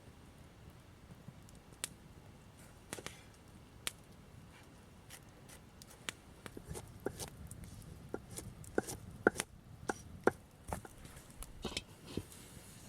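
Knife chopping on a wooden board: irregular sharp taps, sparse at first, then coming faster and louder in the second half.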